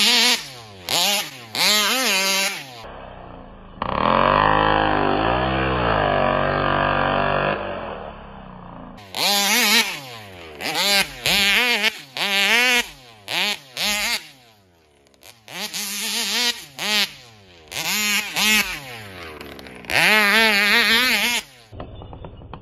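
Two-stroke gas engine of a large-scale Taylor 71 Supreme RC buggy revving up and down in repeated short bursts of throttle, dropping back to a low idle between them. A few seconds in there is one longer stretch at steady throttle.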